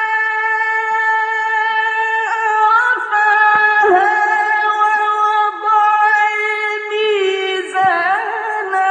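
A solo unaccompanied voice chanting in long, drawn-out melodic notes, each held pitch ending in ornamented turns before the next phrase, with brief breaks between phrases.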